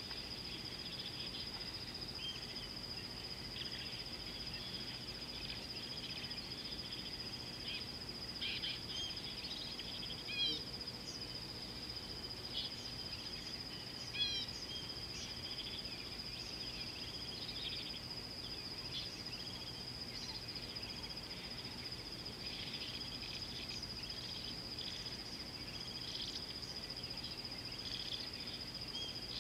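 Outdoor waterhole ambience: a steady high-pitched insect drone, with scattered bird calls and chirps over it and two louder, sharper bird calls about ten and fourteen seconds in.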